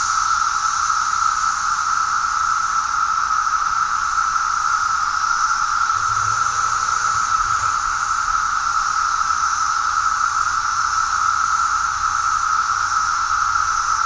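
A dense chorus of 17-year periodical cicadas singing in one steady, loud, unbroken drone: a strong high hum with a fainter, higher hiss above it, almost like a UFO.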